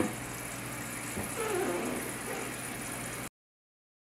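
Toilet tank refilling through its fill valve, a steady hiss of running water, with a sharp click at the start, a small knock about a second in and a brief wavering tone in the middle. The sound cuts off abruptly near the end.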